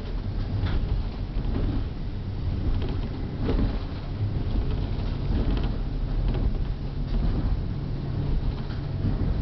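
Diesel train running, heard from inside the carriage: a steady low rumble of engine and wheels on the rails, with scattered short knocks and creaks from the car body. A steadier low engine drone comes in about halfway.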